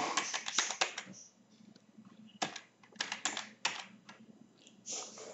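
Typing on a computer keyboard: a quick run of keystrokes, a pause of about a second, then another run.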